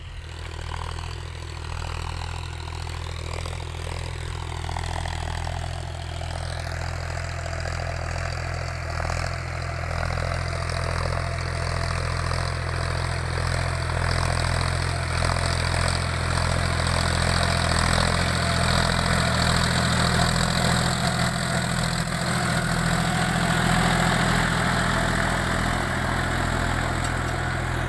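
John Deere 5050D 4WD tractor's three-cylinder diesel engine running steadily under load while it pulls a tillage implement through the soil. It grows louder as the tractor draws near.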